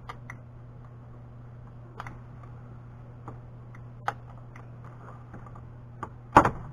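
Scattered small plastic clicks and creaks as a metal putty knife pries at a stubborn dash air vent and its trim clips, over a steady low hum, with one loud sharp snap near the end.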